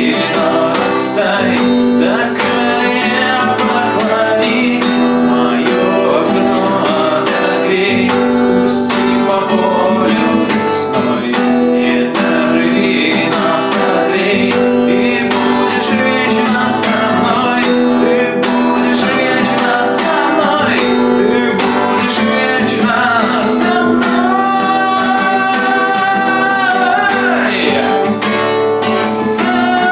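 A man singing a song to a strummed acoustic guitar, with one long held vocal note near the end.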